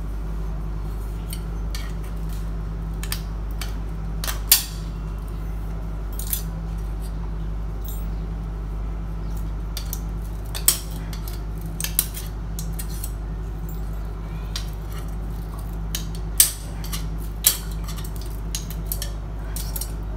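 Screwdriver clinking and scraping against the metal of a Royal Enfield Bullet's chrome headlight bowl while the old light is taken apart, in scattered sharp taps with the loudest about four and a half, ten and a half and sixteen seconds in.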